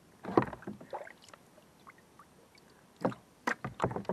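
A molded plastic drive-hole plug being set down into a kayak's drive well, knocking and clattering against the plastic hull. There is a cluster of knocks about half a second in, a few lighter taps, then a quick run of knocks near the end.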